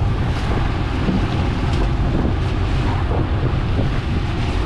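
Wind blowing on the microphone over the low steady rumble and water rush of a fishing boat under way while trolling.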